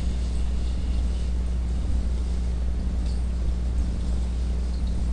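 Steady low electrical hum with light hiss, unchanging throughout.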